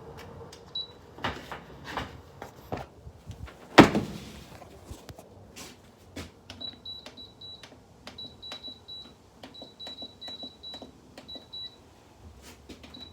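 Handling clicks and knocks with one loud thump about four seconds in, then a run of short, high electronic beeps in quick groups from the GoldStar air conditioner's control panel, a beep for each button press.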